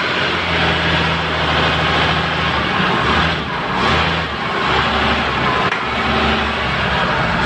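Toyota forklift's engine running under load as it is manoeuvred, its pitch shifting and dipping about three to four seconds in.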